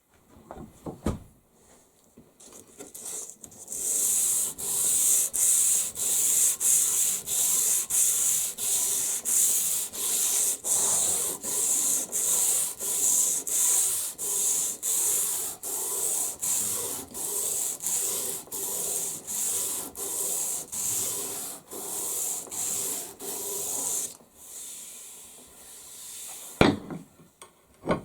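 Wooden axe handle being worked by hand in long, even abrasive strokes, about one and a half a second, a steady rasping rub against the grain. A few light knocks near the start and at the end as the work is handled.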